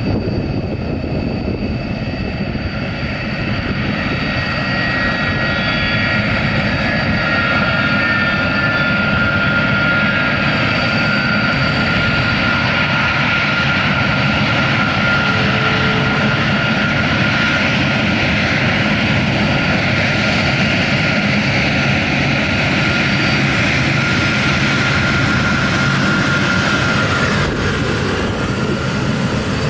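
Four turbofan engines of a USAF RC-135 reconnaissance jet running as it taxis: a steady, loud jet whine over a low rumble.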